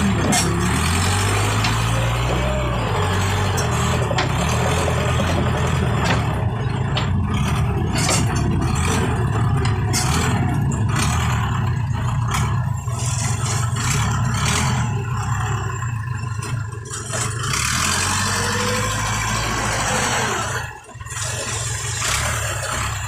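Heavy machine's engine running steadily, with a brief rise and fall in engine speed near the start and a short drop in sound near the end.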